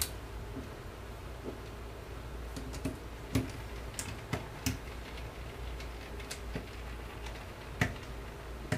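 Scattered small clicks and taps as a hex driver turns the stock screw back into an air rifle's wooden stock, the sharpest click near the end, over a faint low hum.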